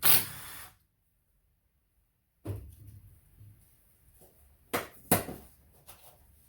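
Workshop handling noises while an ATV engine is being taken apart: a brief loud clatter, a gap of dead silence, then two sharp knocks less than half a second apart, like tools or engine parts being set down.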